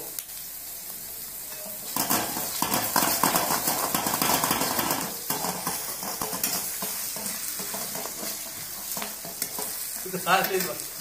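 Vegetables stir-frying in a steel wok: a sizzling hiss, with the steel ladle scraping and tossing against the pan. It gets louder about two seconds in, as the stirring picks up.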